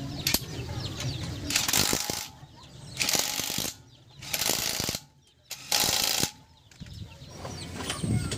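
Cordless impact wrench hammering the wheel's lug nuts tight, in three short bursts a second or so apart.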